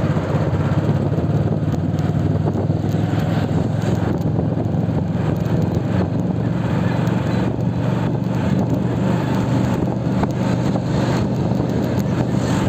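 Motorcycle being ridden at a steady pace: a continuous, even engine drone with road and wind noise over it.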